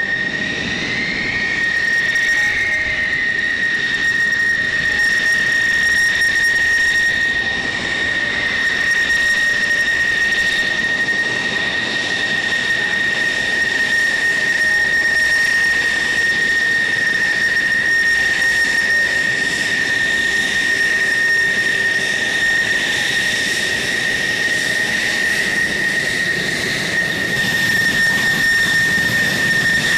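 F-16 fighter jets taxiing with their jet engines at idle: a steady high-pitched whine over a rushing hiss.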